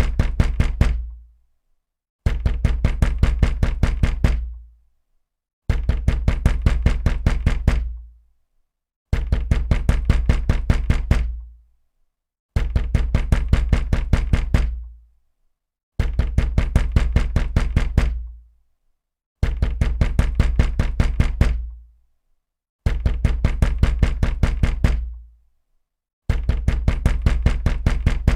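Heavy, loud banging on a wooden door. It comes in rapid flurries of about two seconds, repeated roughly every three and a half seconds, each dying away before a short silence.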